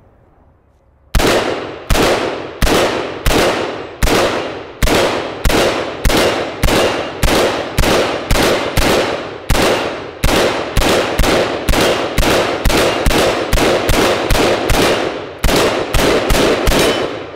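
A 5.56 mm AR-15-pattern carbine firing a long string of single semi-automatic shots, about thirty of them. Each crack rings off sharply. The shots come steadily at first, then speed up to about two or three a second, with a short pause near the end.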